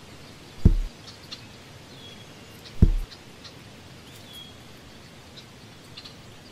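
Outdoor ambience with small birds chirping now and then, short high calls. Two dull low thumps, about two seconds apart in the first half, are the loudest sounds.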